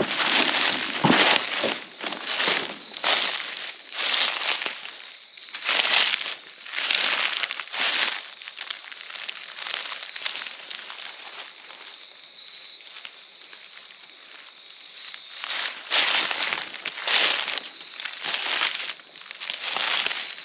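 Boots crunching through dry leaf litter, about one step a second. The steps stop for several seconds midway, then resume.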